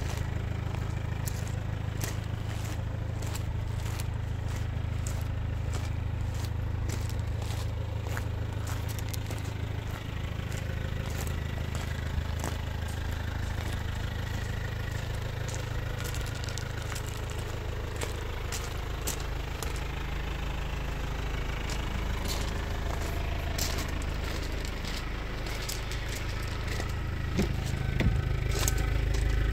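Kia Sportage's engine idling steadily, louder near the end as it is approached, with footsteps crunching on gravel.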